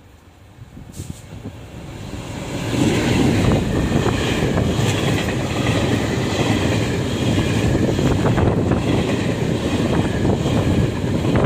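Taiwan Railways E401 electric locomotive hauling a train of Fu-Hsing passenger coaches passes close by. The sound rises over the first few seconds as the train arrives, then holds as a loud steady rumble of steel wheels on rail, with scattered clicks as the wheels cross the rail joints.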